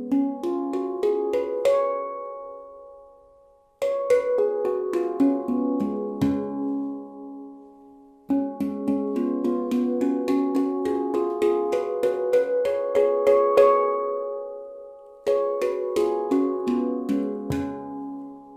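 Meridian handpan tuned to the Sapphire (C# Raga Desh) scale, its nitrided steel shell played with the fingers in quick runs of ringing notes. It plays in four phrases, each fading away before the next begins.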